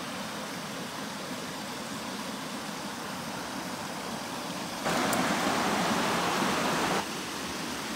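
Steady rush of river water pouring over a low concrete weir. About five seconds in, a louder, closer rush of water cuts in abruptly, lasts about two seconds, and cuts off just as suddenly.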